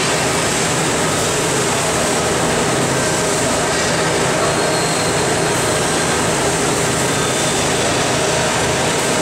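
Rotary milking parlour running: a steady, dense mechanical rumble and hiss from the turning platform and milking machinery, with a faint low hum underneath.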